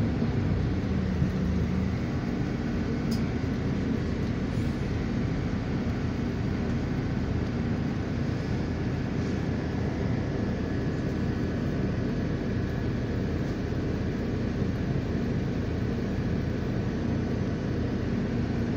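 Steady road and engine noise of a moving vehicle, heard from inside it as it drives along.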